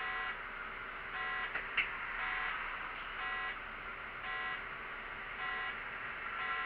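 Electronic signal buzzer on a city bus's dashboard, beeping briefly about once a second in a steady rhythm over the running noise of the bus. A single sharp click about two seconds in.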